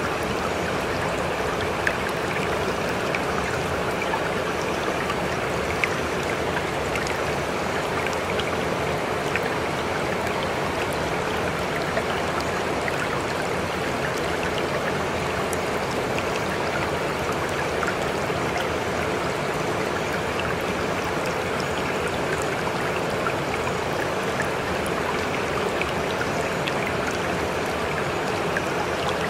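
Steady running water of a stream, an even rushing with scattered small droplet ticks, with a faint steady tone underneath.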